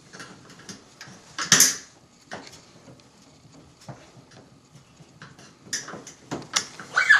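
Scattered knocks and clicks of tools and dishwasher parts being handled, with one louder clatter about one and a half seconds in and a few sharper knocks near the end.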